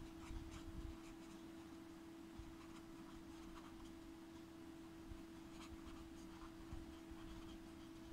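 Faint scratching of a pen writing on paper, in short irregular strokes, over a steady low hum.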